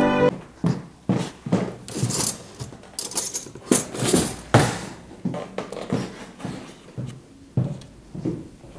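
Small objects being handled and set down on a table: an irregular string of light clicks and taps with soft handling noise between them, the loudest around the middle.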